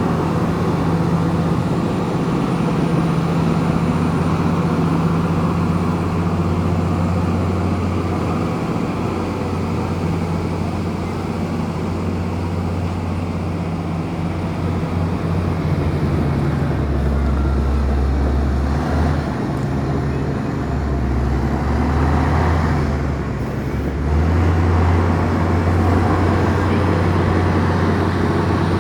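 Komatsu bulldozer's diesel engine running steadily under work. Its pitch drops lower for several seconds in the second half, then comes back up.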